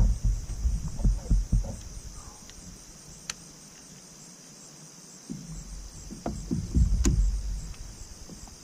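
Steady, evenly pulsing chorus of night insects, with low thumps and water noise from the kayak moving through the water in the first couple of seconds and again from about five seconds on, and two sharp clicks.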